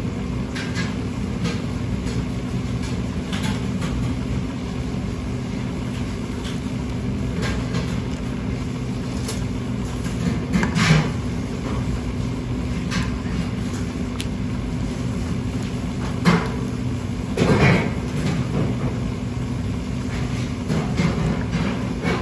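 Steady low hum of kitchen machinery with scattered light scrapes and taps from a metal spoon scraping tuna meat off the skin and knocking it into a plastic tub. There are louder knocks about 11 seconds in and again around 16 to 18 seconds.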